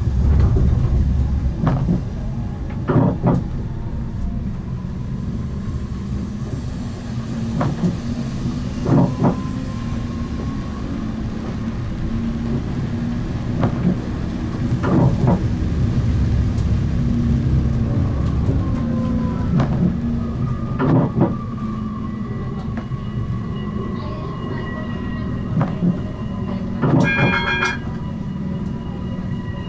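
Siemens Avenio low-floor tram running on track: a steady low rumble, an electric drive whine that slides up and down in pitch, and irregular knocks as the wheels run over rail joints and switches. A brief high ringing tone sounds near the end.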